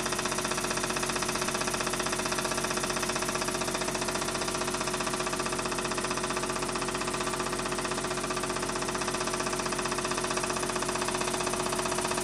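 Pre-war Meccano oscillating-cylinder steam engine running steadily on compressed air: a rapid, even beat of exhaust puffs and small-mechanism rattle, with a steady hum underneath.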